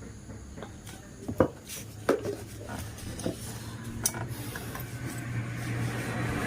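Metal tools and engine parts clinking and knocking as they are handled, about five sharp knocks spread over a few seconds. A low vehicle engine hum grows louder near the end.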